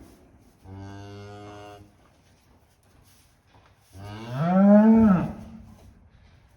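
Dairy cattle mooing twice: first a steady moo of about a second, then a louder moo that rises and falls in pitch.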